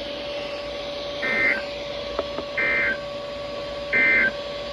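Three short buzzy digital data bursts about a second and a half apart: the Emergency Alert System's SAME end-of-message tones, marking the end of the alert broadcast. A steady low tone hums underneath.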